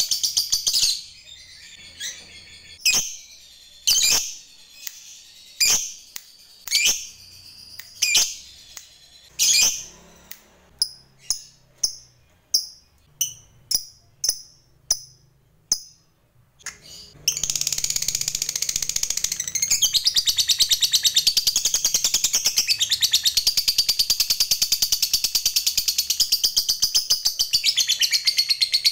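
A lovebird calling: sharp single chirps about a second apart that quicken into short rapid chirps. After a brief pause it breaks into a long, unbroken rapid chatter, the long 'ngekek' trill that lovebird keepers prize.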